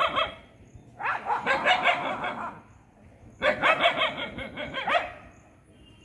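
Street dogs barking in two rapid flurries, each about a second and a half long, one starting about a second in and the other about halfway through, as the tail of an earlier flurry fades at the start. The barking comes from a territorial standoff between dogs.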